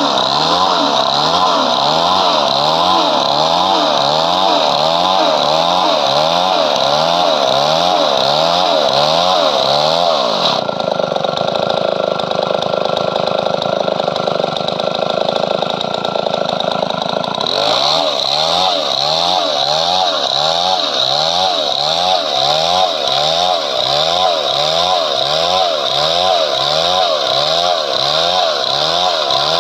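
Chainsaw running under load while cutting padauk wood, its engine pitch wavering up and down about twice a second. About a third of the way in the sound changes abruptly to a steadier, duller drone for several seconds, then the wavering returns.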